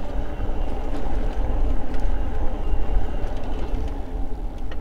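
Electric bike riding along a paved trail: a steady rumble of tyres on pavement and wind buffeting the microphone, with a faint steady hum over it.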